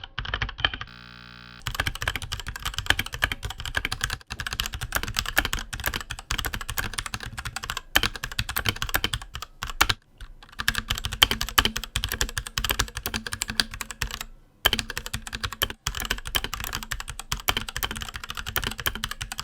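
Fast, continuous typing on a mechanical keyboard fitted with Gateron KS-series switches. The keystrokes come in a dense stream, broken by a few short gaps.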